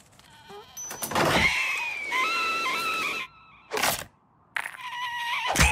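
Animated bird character screaming and yelping in alarm in stepped, wavering calls, with a short whoosh about four seconds in and a sharp hit near the end.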